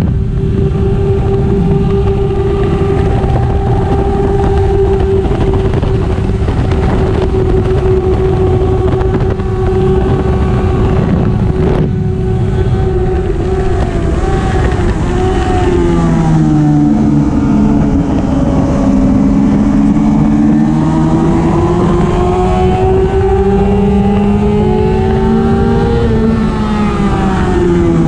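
1999 Yamaha YZF-R6's inline-four engine at high revs on track, its note held steady for the first half, then dropping in steps around the middle as it slows, then climbing again with a drop near the end as it shifts up. A steady rush of wind noise runs under it.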